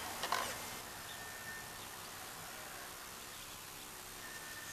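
Radio-controlled scale Unimog rock crawler working over rocks: one sharp knock about a third of a second in, then a faint steady hiss with a thin high whine coming and going.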